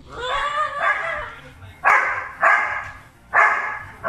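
A Chesapeake Bay Retriever and a chocolate Labrador playing bitey face: a drawn-out, wavering play vocalization, then three sharp barks about half a second to a second apart.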